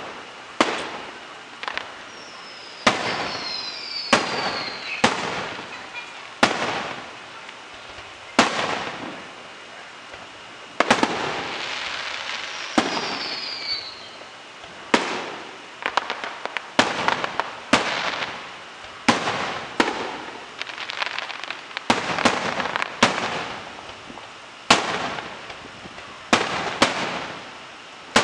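Aerial fireworks display: a steady run of sharp shell bursts, about one a second, with a stretch of dense crackling about halfway through. Two short falling whistles come in, one a few seconds in and one about halfway.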